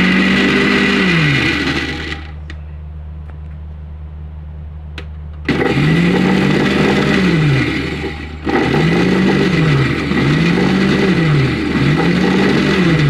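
Electric mixer grinder running in bursts, grinding rice, dal and water into idli batter in its steel jar. It runs for about two seconds, stops for a few seconds, then runs again from about five and a half seconds in, its motor pitch rising and sagging every second or so.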